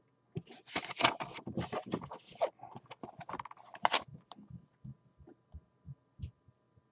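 Paper and cardboard rustling and scraping as a trading-card box and a paper envelope are handled, then a few soft taps and knocks.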